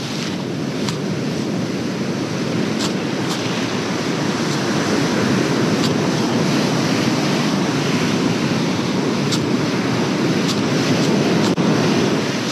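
Ocean surf breaking and washing up a sandy beach: a steady, even rush that swells a little through the middle.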